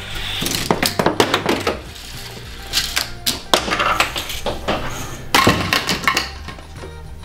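Hard plastic toy parts clicking and knocking in a quick run of separate impacts, with a loud burst of clatter about five and a half seconds in as a set of toy bowling pins is knocked over. Background music plays underneath.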